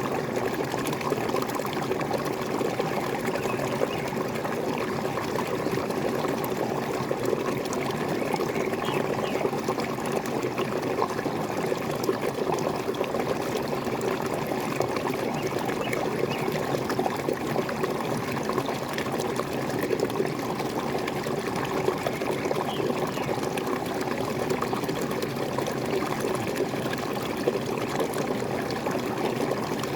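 Water pouring and splashing steadily, as from a small waterfall, with an even, unbroken rush.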